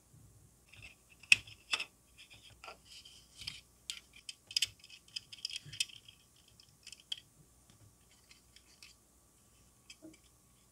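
Small plastic model-kit parts and metal tweezers clicking and scratching as a plastic roll cage is handled and pressed into place in a car model's interior tub. The clicks come in an irregular flurry, with a sharp click about a second in, then thin out to a few faint clicks near the end.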